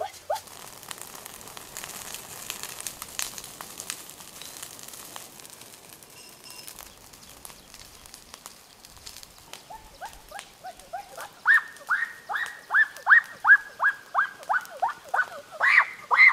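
An animal crying out over and over, about three cries a second, each sliding down in pitch; the cries start about ten seconds in and grow louder. Before them there is only a faint hiss with scattered crackles.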